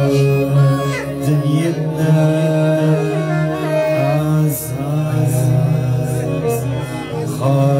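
Live Libyan popular music: an electronic keyboard plays a sliding, bending melody over a steady bass line, with occasional hand-drum and frame-drum strokes.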